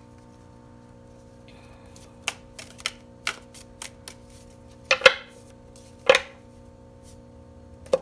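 A deck of tarot cards being shuffled and squared by hand, giving a string of light card clicks and taps, with two louder snaps about five and six seconds in and another at the end. A faint steady hum runs underneath.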